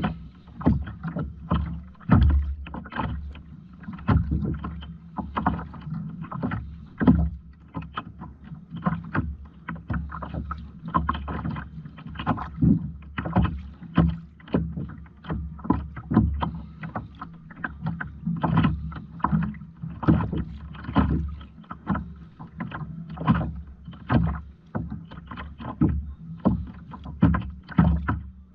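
Water splashing against a kayak in a regular rhythm, about once a second, over a low steady hum.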